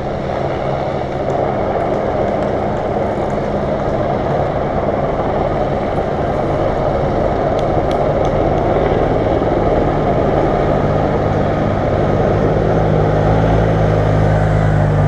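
A steady engine drone that grows louder near the end as a race motorcycle climbs slowly past close by.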